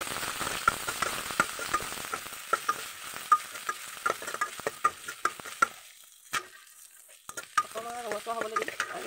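Chopped ginger and garlic sizzling in a little oil in an aluminium kadai while a metal spatula scrapes and taps the pan in quick strokes. The sizzle dies down about six seconds in, leaving a few scattered clicks.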